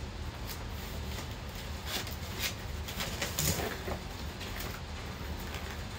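Cardboard and packaging being handled as parts are lifted out of a shipping box: scattered short rustles and light knocks, the clearest about three and a half seconds in, over a steady low hum.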